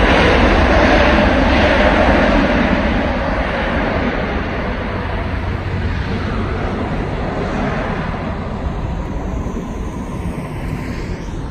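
Boeing 777-300ER jet engine noise as the airliner rolls out on the runway after touchdown. It is loud at first and fades gradually as the plane moves away.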